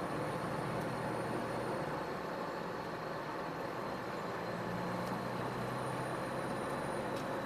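Iveco Stralis truck on the move: the diesel engine runs steadily under road noise, its hum shifting slightly in pitch about halfway through, with a faint steady high whine above it.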